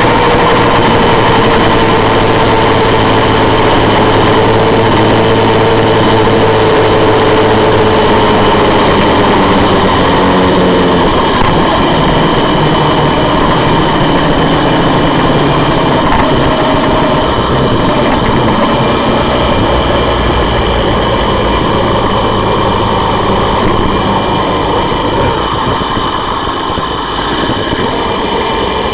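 Honda VFR400's V4 engine running at steady, moderate revs while the bike rolls along, with wind and road rumble on the onboard microphone. The engine note sags slowly over the first ten seconds, then holds steady.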